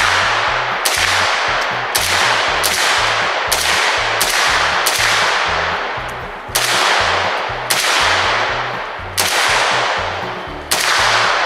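Semi-automatic fire from an Arsenal SLR-107FR AK-pattern rifle in 7.62x39mm: about a dozen loud, sharp shots, roughly one a second at first and spacing out toward the end, each trailing off in a long echo.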